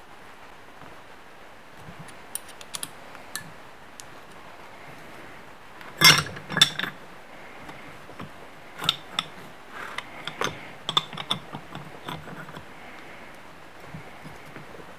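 Metal tools clinking and clicking against an aluminium cylinder head: a sharp clank about six seconds in, then a ratchet wrench clicking in short irregular runs as a spark plug is wound into tight threads.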